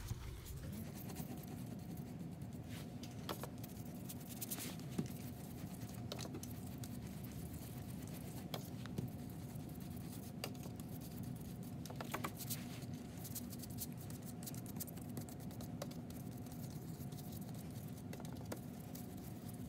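Paintbrush loaded with wet liquid tempera paint stroking back and forth across paper: a faint, continuous scratching swish, with a few light clicks, over a steady room hum.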